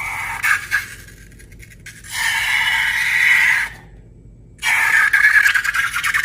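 Close, crackly squeaking and squishing of slime and rubber balloons being worked by hand. It comes in two long stretches, broken a little under four seconds in by a brief complete silence.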